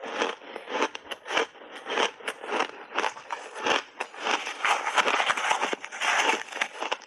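Close-miked chewing of refrozen ice chunks: loud, grainy crunching in quick, irregular bursts with short breaks between bites.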